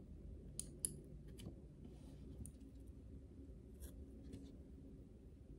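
Faint, scattered small clicks and ticks, about six in all, from handling a lash applicator and lashes during individual lash application, over a low room hum.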